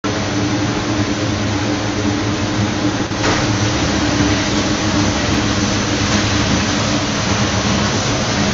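Bizzozero Mica TC 1600 slitter-scorer running: a loud, steady machine noise with a low hum under it. The noise dips briefly and changes slightly about three seconds in.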